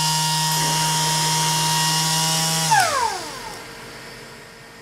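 A handheld pneumatic tool spins freely at a steady high speed with a whine and air hiss. A little under three seconds in it is released, and its pitch falls quickly as it winds down. After that only the much quieter steady hum of the Fiac rotary screw compressor is left.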